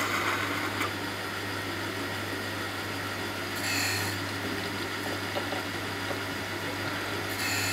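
Jones and Shipman 540 surface grinder running under flood coolant, its wheel grinding a milling-vice jaw while the table is traversed by hand: a steady motor hum under a grinding and coolant hiss. Harsher grinding rasps come twice, about four seconds in and near the end, as the wheel bites on the part's high spot.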